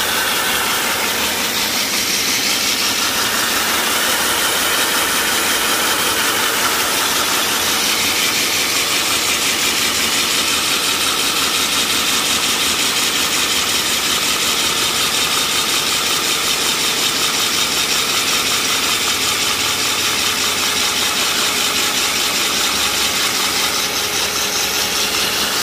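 Electric diamond core drill on a stand running steadily, its large water-cooled core bit grinding down through asphalt under the weight of the feed handle.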